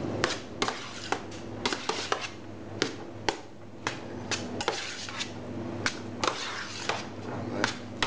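Rice salad being tossed by hand in a stainless steel hotel pan: irregular sharp clicks and knocks against the metal tray about twice a second, over a steady low hum.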